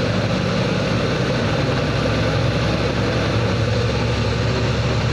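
Truck engine running steadily while driving, heard from inside the cab.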